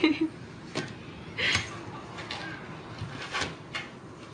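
Short rustles and scrapes of a paper bag as a cat inside it slides across a wooden floor, mixed with brief bits of a person's voice.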